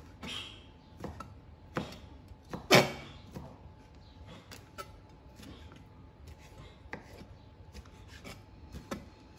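Chef's knife chopping bacon into small dice on a plastic cutting board: irregular knife strokes and scrapes against the board, with one much louder chop about three seconds in.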